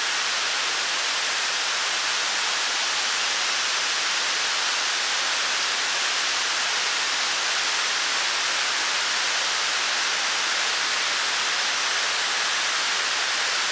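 Steady hiss of television static, an even white-noise rush that is strongest high up with little bass.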